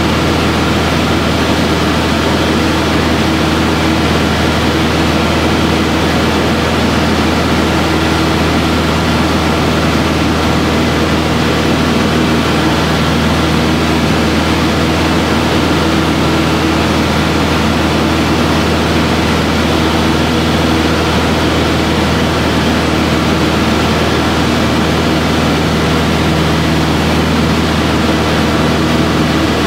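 Aero Boero AB-115's four-cylinder Lycoming engine and propeller running steadily in flight, heard from inside the cabin as a loud, even drone.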